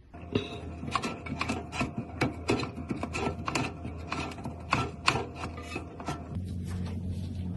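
Irregular clicks, knocks and rubbing of toilet tank parts being handled and fitted during a toilet valve replacement. A low steady hum comes in near the end.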